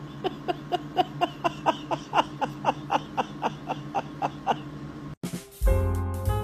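A cat mewing in a fast, even run of short squeaky calls, about four a second, each dipping slightly in pitch. The calls cut off suddenly near the end and music with a beat starts.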